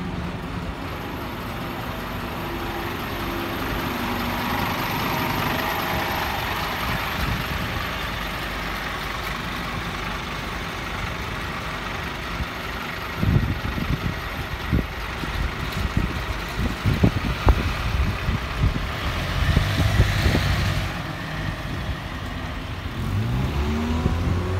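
Scania Citywide articulated bus pulling away from the stop and driving off, its engine accelerating. In the second half, irregular low rumbles and knocks come and go.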